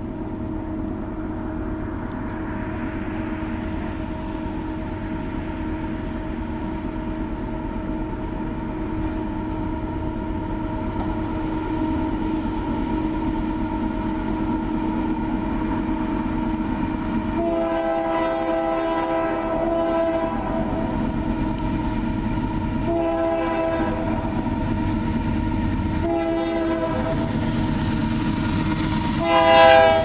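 Air horn of a Union Pacific GE AC4400CW diesel locomotive leading a coal train, sounding steadily as the train approaches and growing louder. About halfway in come four stronger blasts, the third short and the last the loudest as the locomotive passes close by near the end, over the rumble of the engine and wheels.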